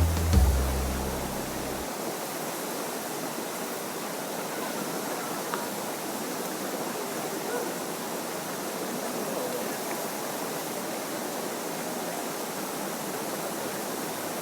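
Steady rushing of a stream, running on evenly once background music ends about two seconds in.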